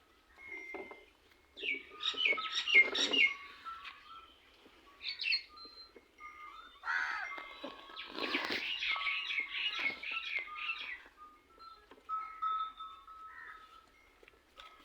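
Small birds chirping, with bursts of quick repeated chirps about two to three seconds in and again from about seven to eleven seconds in, and thinner whistled notes between them.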